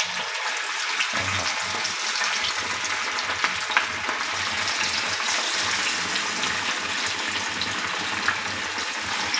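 Marinated masala fish pieces shallow-frying in hot oil in a frying pan: a steady sizzle with many fine crackles as more pieces are laid into the oil.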